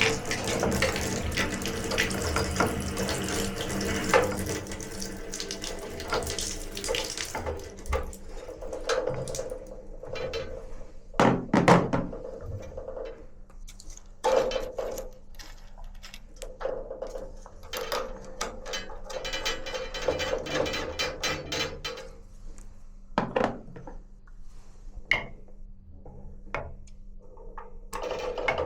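Water running, which stops about seven seconds in. Scattered clicks and clinks follow.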